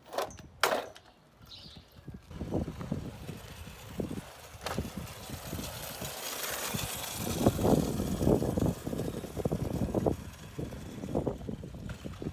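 Razor E300 electric scooter rolling along asphalt under power, with wind buffeting the microphone in gusts.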